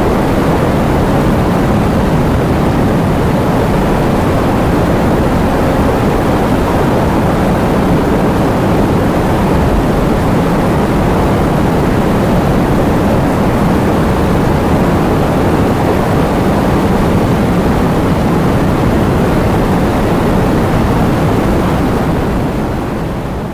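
Heavy rain falling, a steady, even sound that fades out near the end.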